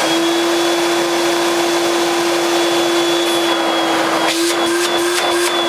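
Hoover S1248 Portapower 800 handheld vacuum cleaner running at full speed, a steady loud motor whine over rushing air, with a few light clicks near the end. The motor sounds healthy: not quiet, but not overly noisy.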